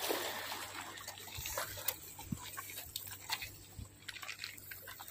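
Faint sea water lapping and sloshing against shoreline rocks, with a few small clicks and ticks scattered through it.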